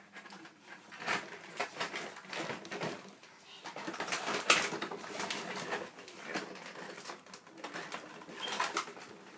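Small plastic dolls being handled and set down on a tabletop: a run of light knocks and clicks, the loudest about halfway through.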